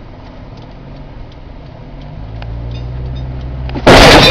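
Car engine running, growing steadily louder, then a loud car crash about four seconds in: a collision with another car that shatters the windshield.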